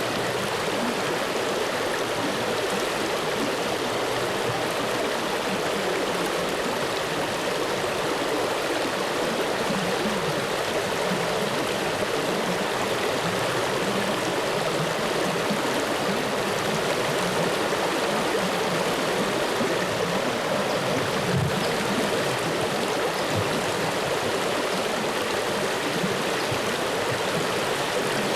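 Flowing water making a steady, even rush that does not change.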